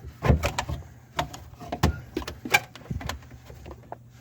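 Irregular clicks and knocks of a drain pipe being handled and fitted under a sink, over a faint steady low hum.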